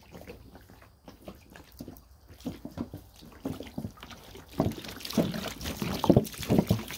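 Water poured from a plastic jug splashing onto a freshly sawn wood slab, in irregular splashes that grow louder about halfway through.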